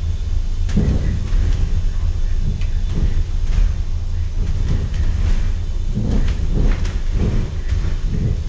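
Upper-deck ride noise of a moving double-decker bus: a steady low rumble, with scattered rattles and knocks.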